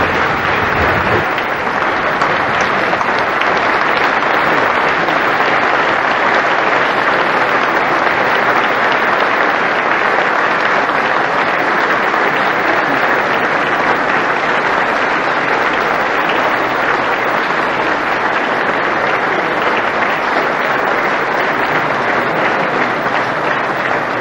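A large assembly applauding, a dense, steady clapping sustained throughout.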